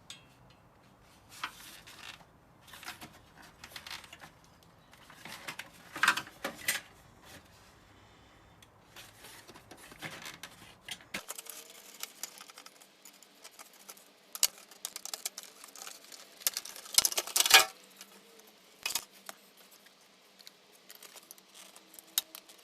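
Small steel parts and hand tools clicking, scraping and clattering as a VCR is taken apart by hand, with a few louder clatters now and then.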